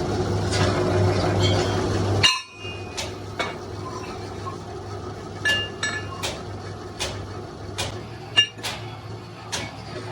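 A steady machine hum that cuts off suddenly about two seconds in with a sharp metallic clink. It is followed by repeated hammer taps on metal, some of them ringing briefly, about one every half second to second.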